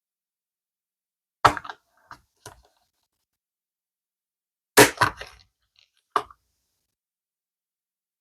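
Small craft magnets clicking and snapping against each other and onto hard surfaces as they are handled and set into a resin mould: a few sharp clicks about a second and a half in, two faint ones after, and the loudest cluster near the middle, followed by one more.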